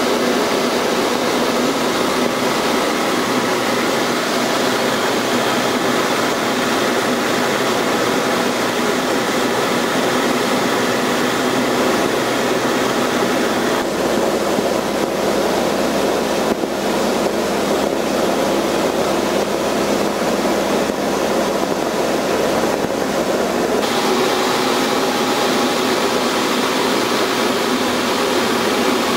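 Steady engine and propeller drone of a light aircraft heard from inside its cabin in flight. The tone of the drone changes abruptly about halfway through and again about ten seconds later.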